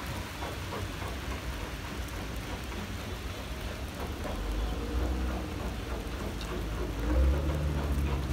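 Steady hiss of rain falling on grass and leaves, with a low rumble that swells about halfway through and is loudest near the end.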